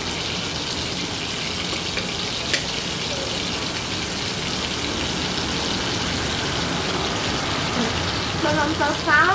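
Beef steak frying in butter in a nonstick pan, a steady sizzle with a couple of sharp pops about two seconds in.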